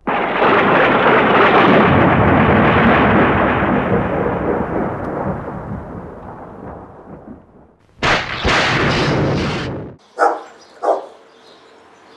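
Thunder sound effect: a loud crash that rumbles and fades over about seven seconds, then a second crack about eight seconds in that stops abruptly. Right after, a dog barks twice.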